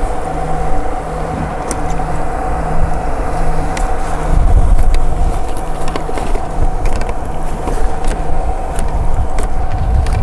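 Wind buffeting the microphone, with a gust swelling about four seconds in, over a steady mechanical hum that has a low tone pulsing on and off about once a second. Scattered light ticks sound through it.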